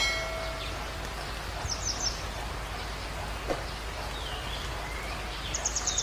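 Steady rain-like hiss of an outdoor nature ambience, with small birds chirping: quick runs of high notes about two seconds in and again near the end, and a few short swooping calls between.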